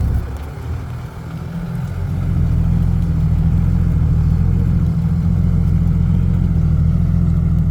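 Loaded dump truck's diesel engine pulling hard up the pit exit. It grows louder about two seconds in, then holds a steady heavy drone.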